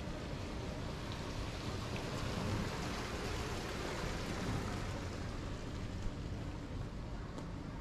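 Steady ambient noise of a city market street at walking pace: an even hiss-like background with a few faint ticks.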